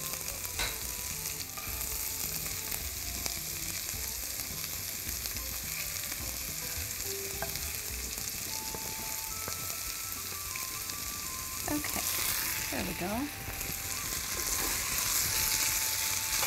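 Onion-tomato masala sizzling steadily in a nonstick frying pan while crumbled paneer is scraped in off a plate with a wooden spatula and stirred through, with a few light scrapes and taps of the spatula.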